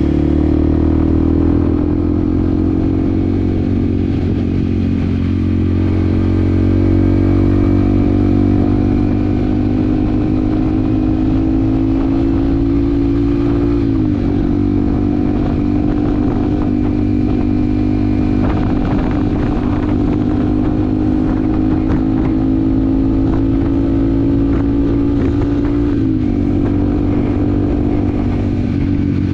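Yamaha WR155R's single-cylinder engine running under way, its pitch climbing slowly and dipping sharply twice, once about halfway and once near the end.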